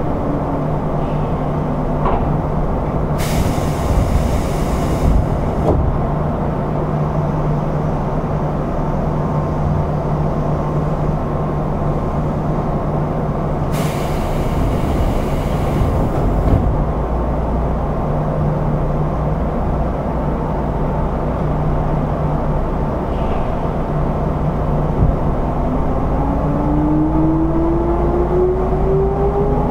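Odakyu 1000 series electric train running, heard in car DeHa 1311: a steady rumble and low hum, with a falling traction-motor whine that stops just after the start. There are two bursts of air hiss, about 3 s and 14 s in, and near the end a rising motor whine as the train accelerates again.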